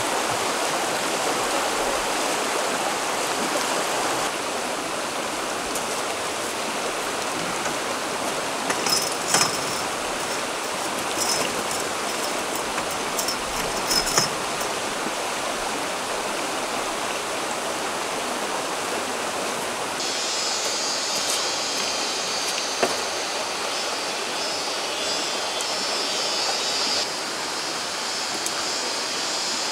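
Shallow rocky stream rushing steadily over stones. A few sharp clicks and knocks come a third of the way in, and a high, thin buzzing joins for several seconds later on.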